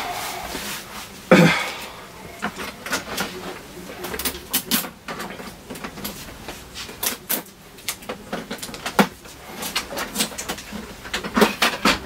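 Plastic knocks and clicks from an Epson L14150 printer being handled. There is a loud thump about a second and a half in as the flatbed scanner lid is shut, then a string of sharp clicks and taps as its top unit and panels are worked.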